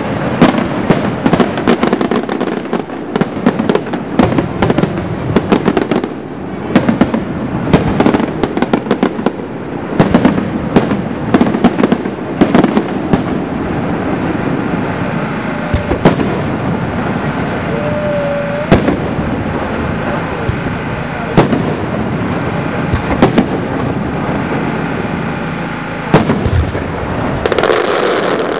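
Aerial fireworks display: shells bursting in rapid succession over continuous crackling. The reports are densest in the first half, become sparser single bangs in the middle, and a heavier volley comes near the end.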